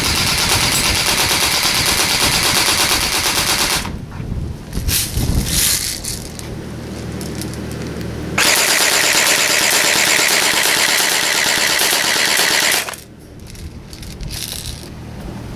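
Electric airsoft rifle firing full-auto: two long bursts of rapid clicking, each about four seconds, with a few scattered clicks between them.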